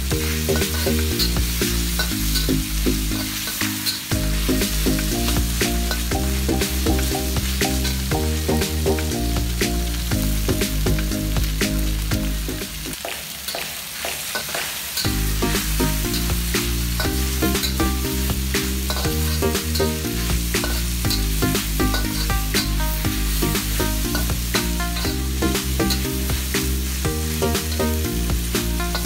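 Pork liver and spring onions sizzling in a hot wok, stirred with a metal spatula that scrapes and taps the pan. Background music with a steady bass line plays over it and drops out for about two seconds near the middle.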